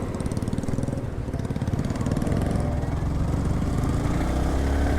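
Yamaha R15 V3's 155 cc single-cylinder engine running under way, its note rising a little from about two seconds in.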